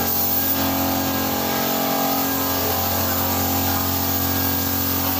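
Paint-spraying air compressor running steadily, a constant hum under a loud, even hiss of air.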